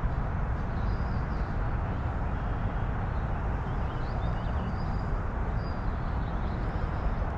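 Steady low rumbling outdoor noise with a few faint, brief bird chirps.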